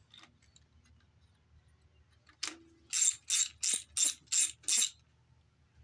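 Hand ratchet wrench clicking in about six quick back-and-forth strokes in the second half, working loose a stubborn bolt on the top end of a Chrysler 318 V8.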